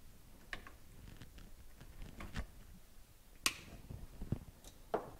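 Diagonal cutters snipping plastic cable ties: a few scattered sharp clicks, the loudest about three and a half seconds in.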